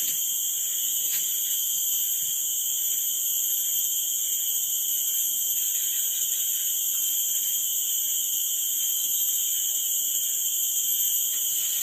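A chorus of cicadas droning in a steady, unbroken high-pitched whine.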